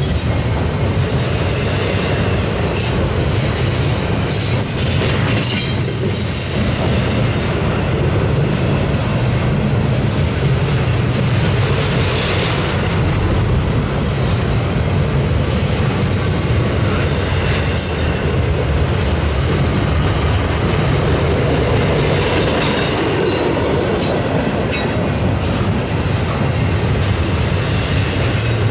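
Double-stack intermodal well cars of a freight train rolling past close by: a loud, steady rumble of steel wheels on rail with many short clicks throughout.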